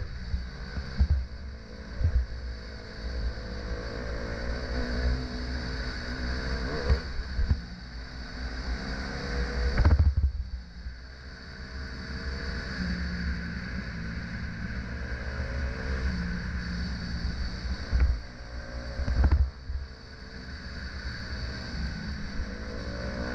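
Dirt bike engine running under load on a trail, its pitch rising and falling as the rider works the throttle. Heavy low thumps from jolts over bumps stand out about ten seconds in and twice more around eighteen to nineteen seconds.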